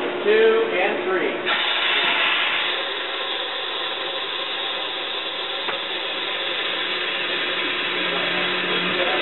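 Under-axle hydraulic aircraft jack under a Boeing 767 main-gear axle being run to raise it: a steady mechanical rushing noise that starts about a second and a half in, after a few spoken words.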